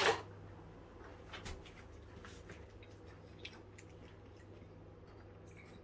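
Faint irregular clicks and mouth sounds of someone chewing a mouthful of bacon and avocado sandwich, over a steady low electrical hum.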